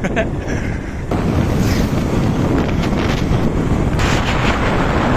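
Wind buffeting the microphone of a riding motorcycle, a dense rumble that jumps louder about a second in.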